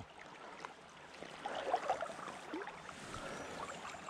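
River water running, with light splashing that picks up about a second and a half in.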